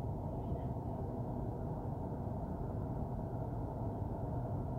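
Santiago Metro Line 3 train running between stations, heard from inside the car as a steady low rumble.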